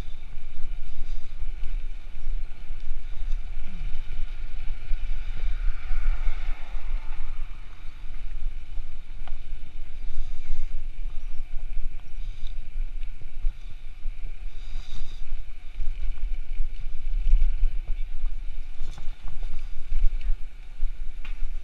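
Wind buffeting the microphone of a camera on a moving bicycle: a steady, gusty low rumble, with tyre and road noise beneath it.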